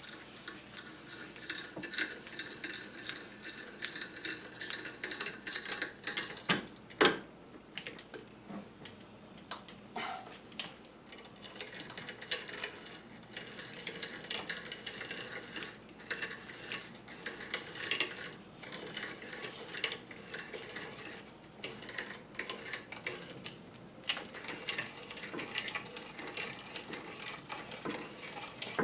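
Hand brace turning an auger bit into a wood block, giving a steady run of small clicks, creaks and crackles as the bit cuts the wood, with one sharper knock about seven seconds in.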